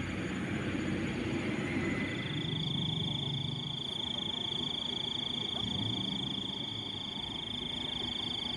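Frogs calling in a forest chorus, a high steady trill coming in about two seconds in and holding, over a low background rumble.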